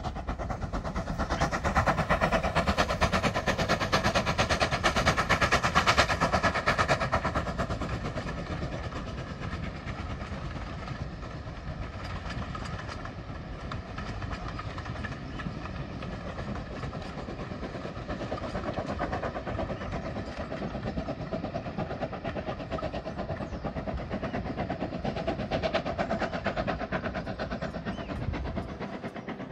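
Steam locomotive and its train of coaches running past on the line below, loudest over the first several seconds, then steadier as it draws away.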